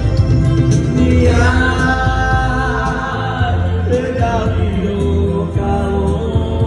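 Live band music: a man sings a Romani song into a microphone over amplified electronic keyboard and electric bass accompaniment. The vocal line comes in about a second in, breaks briefly near the middle, then resumes.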